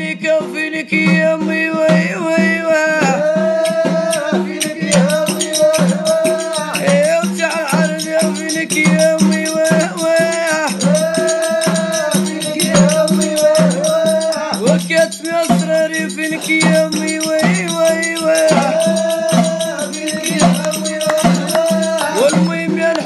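A man singing a song about a mother with long, wavering held notes, over a steady shaking-rattle percussion beat.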